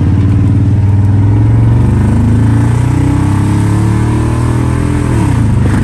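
Loud truck engine and exhaust pulling away under acceleration, its pitch climbing steadily for a few seconds, then dropping sharply about five seconds in.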